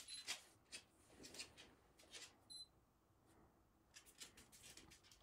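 Roe deer buck cropping grass: faint crisp clicks over near silence, with a brief high chirp about two and a half seconds in.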